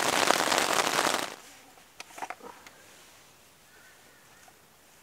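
Rain pattering densely on a nylon tent fly, heard from inside the tent, which cuts off abruptly about a second in, leaving faint outdoor quiet with a few soft ticks.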